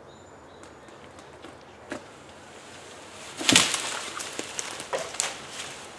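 Wooden knocks and clatter with no saw running: a small sharp knock, then a loud crack of wood on wood a little past halfway, followed by several lighter knocks.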